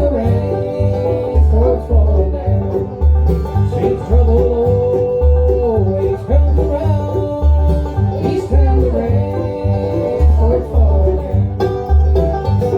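Bluegrass band playing an instrumental passage: banjo, mandolin and guitar over a bass marking the beat with steady notes, with a change near the end as the song winds up.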